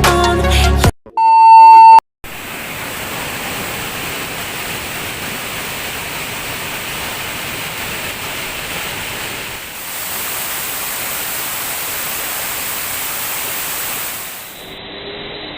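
Music stops about a second in, then a loud electronic beep sounds for about a second. After it, the steady rush of a waterfall, growing a little louder about two-thirds of the way through.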